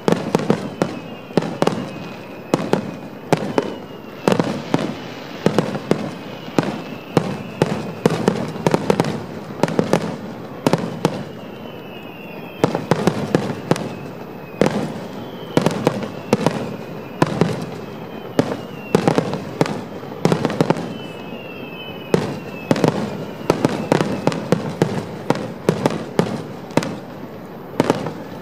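Grand-finale fireworks barrage: aerial shells bursting in quick succession, many bangs a second over a continuous rumble.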